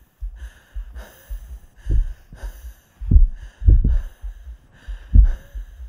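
A muffled heartbeat of soft low thumps about twice a second, with heavier beats four times, under a faint breathy hiss.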